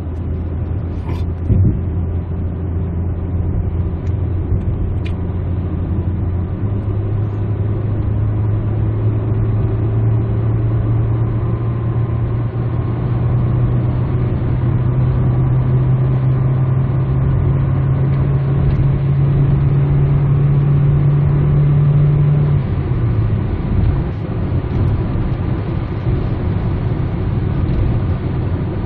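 Car engine and tyre and road noise heard from inside the cabin while driving. The engine note holds steady, steps up about six seconds in and climbs slowly for some fifteen seconds, then drops back about 22 seconds in.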